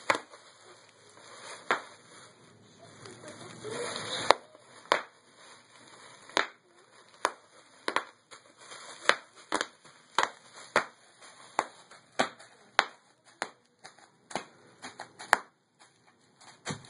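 Bubble wrap popping under foot: single sharp pops, a few at first and then about two a second, each bubble bursting on its own.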